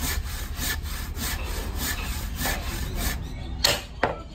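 Handsaw cutting wood in steady, even strokes, then two sharp knocks of a hammer striking wood near the end.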